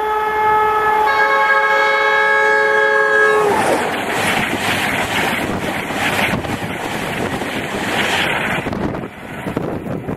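Class 91 electric locomotive's two-tone horn held on long: one tone, then both together from about a second in, dropping in pitch as the locomotive passes about three and a half seconds in. Then the loud rush of Mark 4 coaches passing at speed, which dies away near the end into wind on the microphone.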